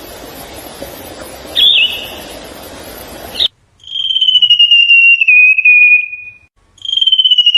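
A songbird singing a long, rapid trill twice, each trill slowly falling in pitch. Before it, over a steady noisy background, there is a single short chirp, then the sound cuts off abruptly about three and a half seconds in.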